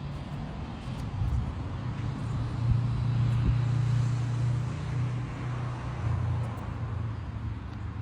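A motor vehicle's low, steady engine hum that swells to its loudest in the middle and then eases off.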